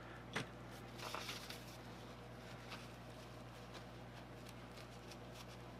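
Faint handling sounds on a workbench: a single light click about half a second in, then soft paper-towel rustling and a few small ticks, over a low steady hum.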